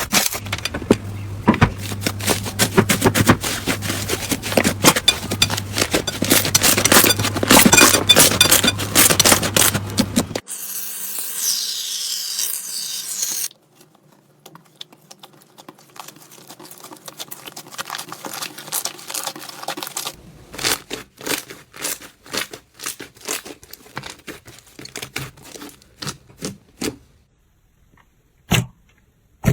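Slime being squeezed and worked by hand, making crackling, popping clicks: dense for the first ten seconds or so, then a brief hiss, quieter crackles, and scattered single pops near the end.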